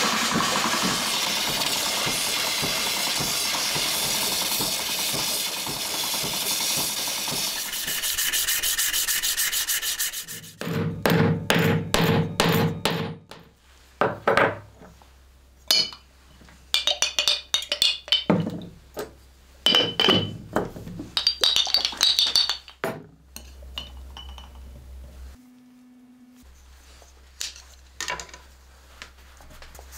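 A pedal-powered grinding wheel with something held against it, making a steady rasping rush. About ten seconds in this stops. It gives way to a run of separate knocks and ringing clinks as a glass jar is handled and its lid taken off.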